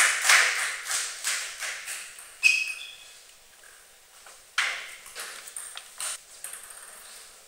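Table tennis ball bouncing in an echoing hall between rallies. A run of hard ticks about three a second grows fainter over the first two seconds, a single sharp click comes about two and a half seconds in, and a few lighter ticks follow near the end.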